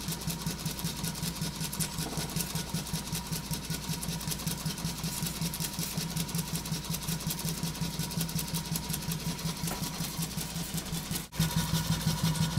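Stuart No. 4 single-cylinder model steam engine running slowly on low steam pressure, with an even, rapid beat from its exhaust and moving parts. The beat sounds louder for the last second.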